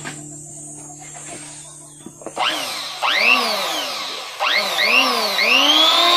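Makita electric hand planer test-run in short trigger bursts starting about two seconds in: its motor whines up to speed and winds down again twice, then is held at full speed near the end. It runs free, not cutting wood.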